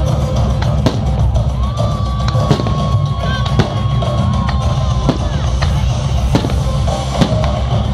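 Loud music with a heavy drum beat, with sharp firework bangs cracking out at irregular moments, roughly once a second.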